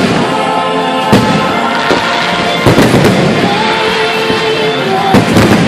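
Fireworks bursting over a show's music soundtrack, with sharp bangs about a second in, at two seconds and just after, and a quick cluster near the end.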